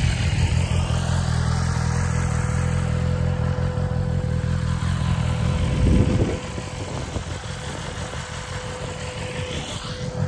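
Wind rushing over the microphone on a moving BMW S1000RR sport bike, with the inline-four engine running at a steady cruise underneath. A louder gust hits about six seconds in, and after it the wind noise is lower.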